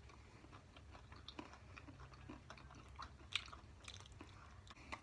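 Faint chewing of a piece of chocolate bar, with scattered small mouth clicks and one slightly louder click about three and a half seconds in.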